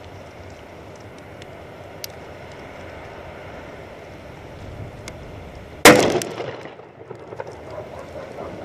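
A plastic bottle wedged into a pineapple bursts with one sharp, loud bang about six seconds in, and the bang dies away over about a second. A few small clicks follow as bits land. Before the bang there is only a steady background hiss.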